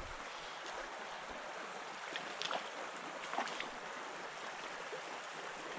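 Stream water running over a riffle in a steady rush, with a few short, sharper sounds about two to three and a half seconds in.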